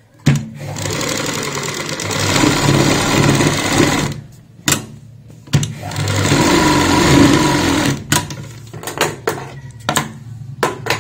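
Domestic sewing machine stitching through the layered salwar cuff in two runs of a few seconds each, with a short pause and a couple of clicks between them. Near the end come several separate sharp clicks as the threads are snipped with scissors.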